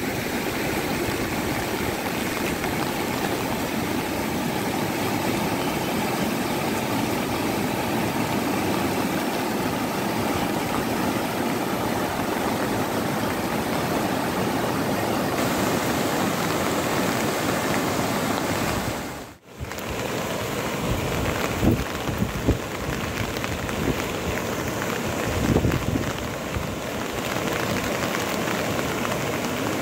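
Steady rushing water noise, with a brief drop-out about two-thirds of the way through and a few short knocks soon after it.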